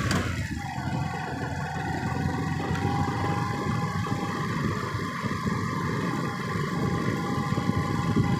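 A vehicle running steadily on the move, with engine and road noise and a thin, steady whine held over it. A short click comes right at the start.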